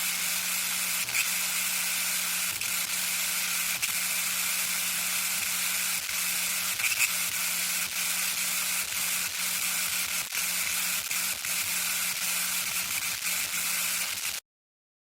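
Television static: a steady white-noise hiss with a low hum that keeps cutting in and out and faint scattered crackles. It stops abruptly near the end.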